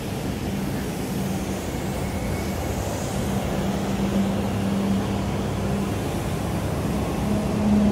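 A vehicle engine running with a steady low hum over city street noise.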